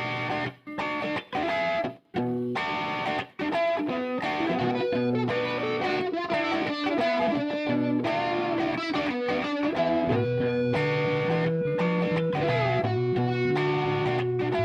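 Background rock music led by distorted electric guitar. It plays in short stop-start hits with brief silences for the first few seconds, then settles into a continuous band groove.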